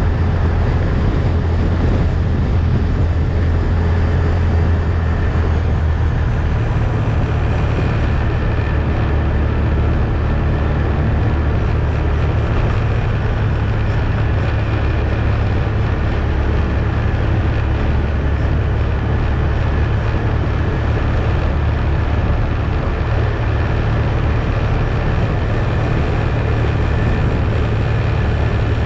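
ATV engine running as it drives along, a steady low drone that shifts slightly in pitch a few times.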